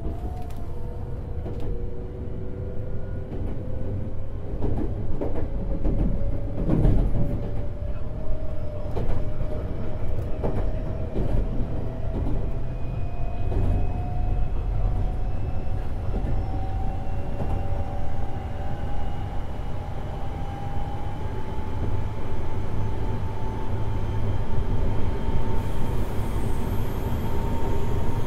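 Semboku 7020-series electric train running, heard from over a motor car's bogie: the traction motors and Hitachi two-level IGBT inverter give a whine that climbs slowly and steadily in pitch as the train gathers speed. Under it runs the rumble of the wheels on the rails, with a few knocks at rail joints.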